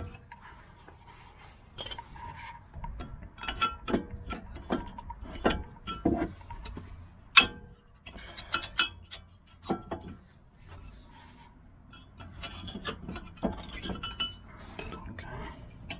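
Irregular metallic clicks, knocks and scraping from a car's front disc brake caliper and pads being handled and pried with a screwdriver, with one sharp knock about seven seconds in.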